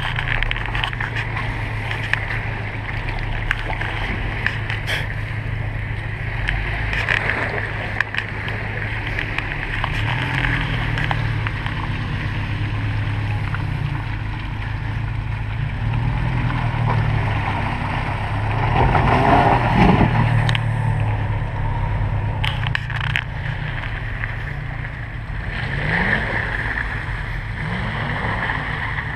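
Jeep Wrangler's 3.6-litre V6 engine running at low revs as it crawls through a muddy puddle and over rocks, the revs rising and falling a few times.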